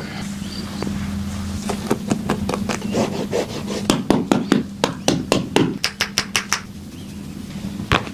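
Percussive massage on a person's body: a quick run of sharp strikes, several a second, loudest in the middle and thinning out near the end, with one last strike just before the end.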